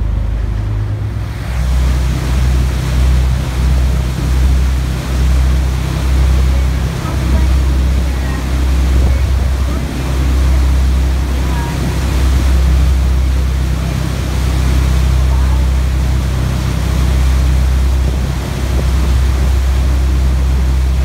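Passenger boat's engines running with a steady low drone, under the rushing of the churning wake and wind, which grows louder about a second and a half in.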